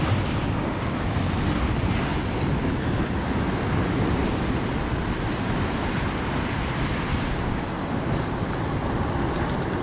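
Surf washing against a rocky shore, a steady rushing noise, with wind buffeting the microphone.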